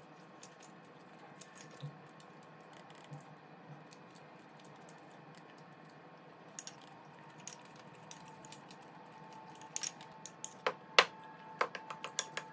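Spoon clinking and scraping against a dish during eating: scattered light clicks, then a run of sharper, louder clinks in the last few seconds.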